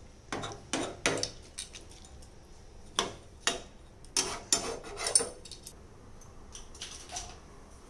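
A spoon knocking and scraping against a kadai while rice and water are stirred: a string of irregular clinks and knocks, denser in the first five seconds and fainter near the end.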